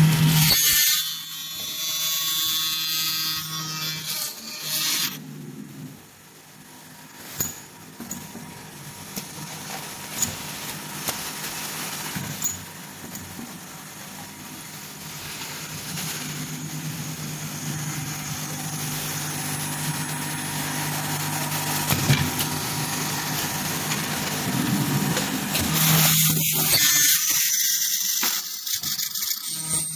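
Automatic floor-wiper making machine running: a loud whining, hissing stretch in the first few seconds, then a steady hum broken by a few sharp mechanical clicks, and a loud hiss of compressed air from the pneumatic parts near the end.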